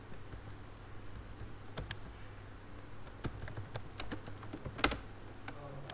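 Computer keyboard keys being typed in scattered, irregular strokes while code is edited, with one louder keystroke near the end.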